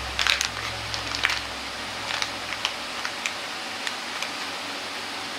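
Kitchen background: scattered light clicks and ticks over a steady hiss, closely packed at first and then sparser, with a low hum dying away about a second and a half in.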